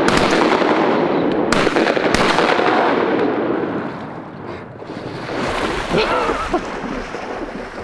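Several shotguns fired in a quick volley at ducks coming in, shots overlapping and echoing for the first three seconds or so, then dying away.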